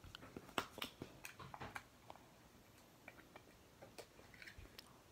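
Faint scattered clicks and light taps of small objects being handled, most of them in the first two seconds and a few more about four seconds in.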